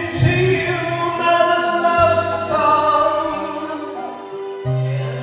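Karaoke music playing, with a singing voice holding long notes over a steady bass line.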